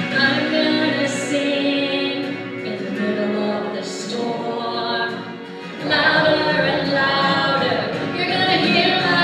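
Hymn singing, voices holding long notes, with a louder new phrase starting about six seconds in.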